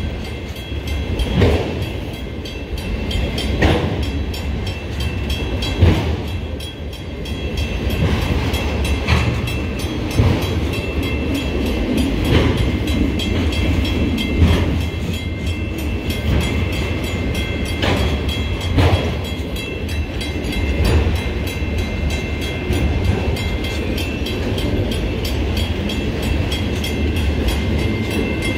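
Freight train of autorack cars rolling past very slowly: a steady low rumble of wheels on rail, with a sharp wheel knock every couple of seconds.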